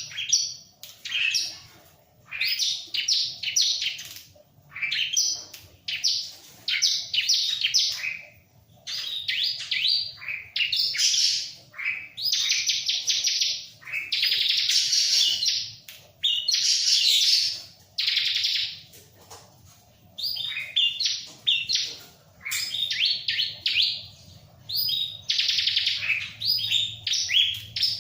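Bar-winged prinia (ciblek) in full song: rapid, high chattering phrases of about a second each, one after another with short gaps, and a few longer unbroken phrases about halfway through.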